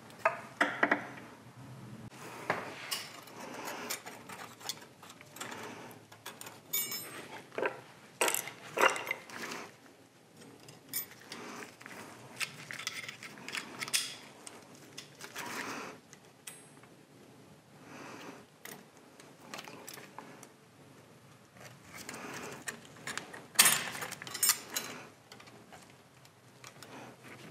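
A metal pick and pliers clicking, clinking and scraping against the metal clutch bearing housing of a Monarch lathe. The sounds come irregularly, with a sharper clatter near the end.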